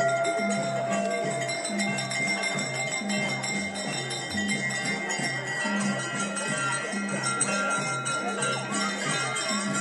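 Temple bells ringing, their tones hanging on, over music with a steady low beat of about one and a half beats a second.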